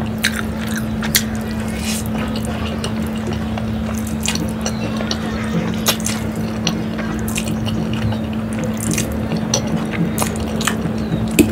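Close-miked wet eating sounds of Maggi instant noodles being slurped and chewed: many sharp, wet mouth clicks and smacks, over a steady low hum.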